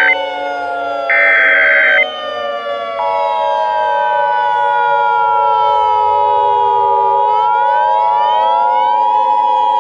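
Emergency Alert System tones over a wailing civil-defense siren: a buzzing EAS data burst ends right at the start and another sounds about a second in, then from about three seconds the steady two-tone EAS attention signal holds. Underneath, the siren slowly falls in pitch and rises again near the end.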